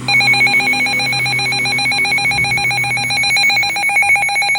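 Emergency alert alarm tone, a shrill, very rapidly pulsing electronic tone held steadily, sounding to announce a new severe thunderstorm warning.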